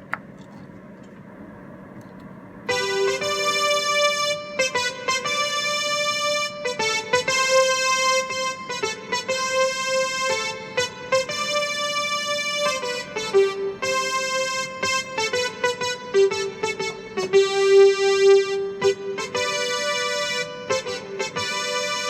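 Electronic keyboard playing a slow hymn tune in held notes with an electric-piano sound. It comes in almost three seconds in, after a faint hum.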